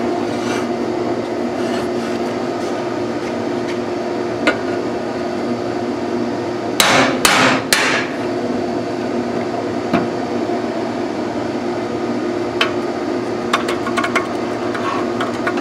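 Hammer striking a punch set in a control arm's steel bushing shell to beat the shell out. The blows are scattered, with three loud sharp ones in quick succession about seven seconds in and lighter knocks near the end, over a steady background hum.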